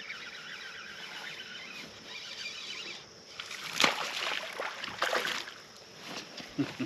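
A hooked bass being reeled to the boat: a fine ticking of the reel winding in, then a sharp splash about four seconds in as the fish thrashes at the surface, another splash about a second later, and a few dull knocks near the end as it is lifted aboard.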